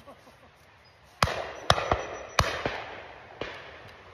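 Shotgun shots fired by other guns on a driven pheasant shoot: four shots over about two seconds starting about a second in, the first the loudest and the later ones fainter, each trailing off in an echo.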